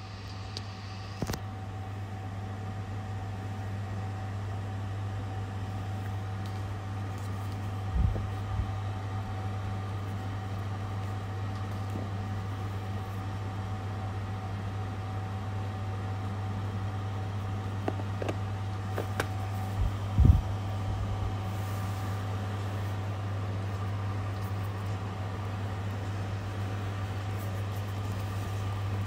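A steady low machine hum with a faint steady whine over it, like an electric fan or air conditioner running in a room. A couple of brief knocks come about eight seconds in and again about twenty seconds in.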